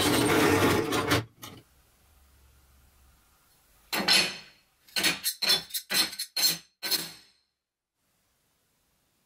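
Drill press running as it bores through a stack of steel plates, stopping about a second in. About four seconds in a steel plate is set down on a workbench with a clink, followed by a quick series of about seven short metallic clinks.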